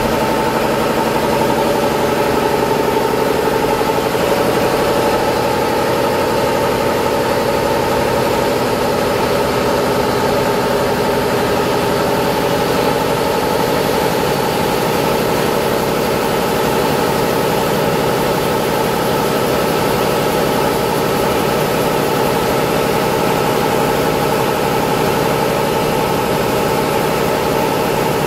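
Doosan DNM400 vertical machining center powered up and running, its motors and pumps giving a steady mechanical hum with several held tones.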